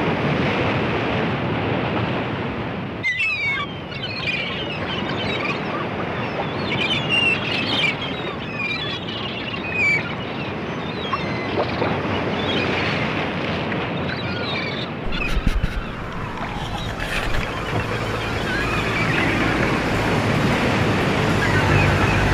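Sea water and wind noise, with scattered short high chirping calls through the middle. A low wind rumble on the microphone comes in about fifteen seconds in.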